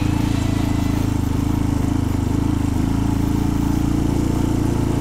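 Single-cylinder motorcycle engine running at a steady pace, heard from on board while riding a dirt track.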